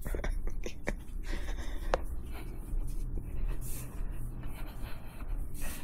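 Ozium aerosol air sanitizer sprayed in short hissing bursts, two clear ones in the second half, with light clicks and handling noise in between.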